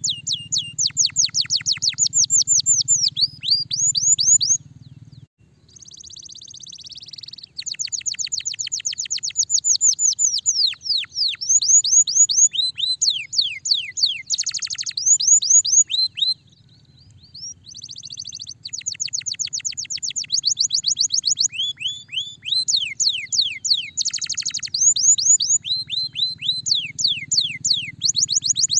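A domestic canary singing a fast, continuous song: rapid runs of repeated downward-sweeping whistled notes, about ten a second, broken by short buzzy trills. A faint low hum lies beneath parts of it.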